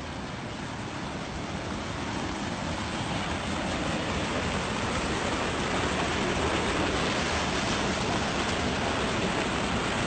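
Steady rushing of industrial wastewater flowing out at a dumping site, heard as an even hiss that grows a little louder over the seconds.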